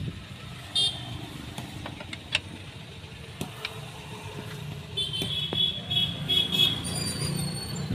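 Clicks and light metallic knocks from new rear drum-brake parts on a Mahindra Scorpio being handled and fitted to the backing plate, over a steady low engine rumble. Short high squeaks come about a second in and again through the last three seconds, the loudest part.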